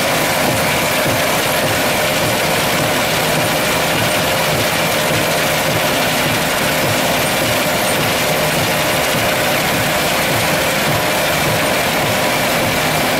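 Steady din of a tin-sand separating plant at work: electric motors and spring-mounted separating machines running, with a few steady hum tones and slurry water flowing through the noise.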